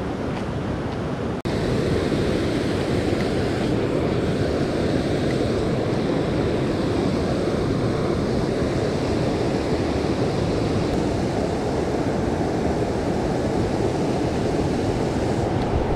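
Creek water rushing steadily over rocks near a waterfall, a continuous even rush that dips briefly about a second and a half in and then runs on slightly louder.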